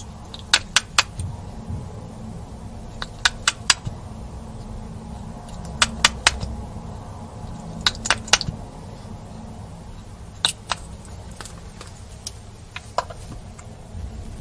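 Slime being squeezed and mixed by hand, giving sharp clicks and pops in quick runs of two or three, over a low steady hum.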